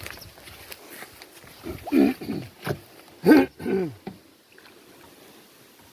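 A person's voice making several short wordless vocal sounds, each falling in pitch, over about two seconds in the middle.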